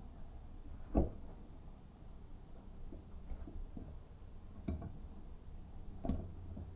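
A few sharp metallic clanks and clicks of a wrench and pliers against a chrome faucet valve body. The loudest comes about a second in, with others near five and six seconds in, over a faint steady hum.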